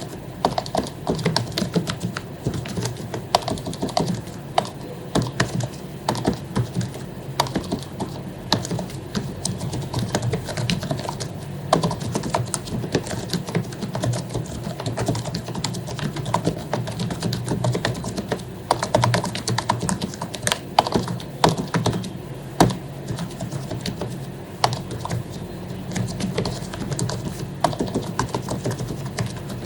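Typing on an HP membrane keyboard with lubricated keycaps: a fast, continuous run of key presses, several per second, without pauses.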